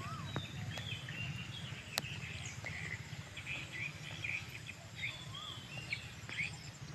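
Birds chirping with many short, high calls and a couple of whistled up-and-down notes, over a steady low outdoor rumble, with a sharp click about two seconds in.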